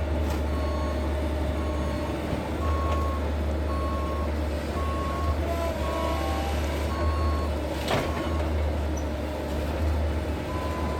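Backup alarm of heavy diesel equipment beeping about once a second over the steady low rumble of its engine, with one sharp knock about eight seconds in.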